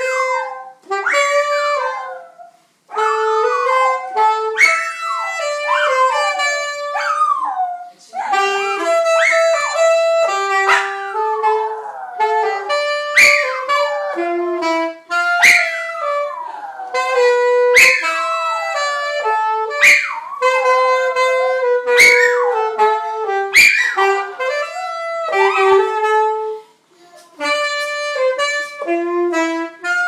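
A saxophone playing held notes while a small dog howls along to it. The dog gives high, whining cries that slide down in pitch, one every second or two.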